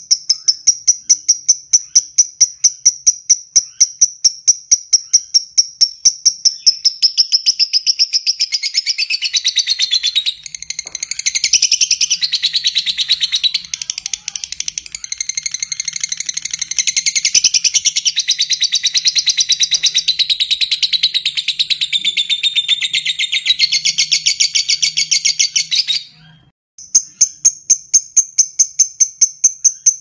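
Lovebird giving a long 'ngekek': a continuous, rapid, high chattering trill that starts several seconds in, runs for about twenty seconds and cuts off abruptly near the end. Before and after it, a steady high-pitched ticking repeats about four times a second.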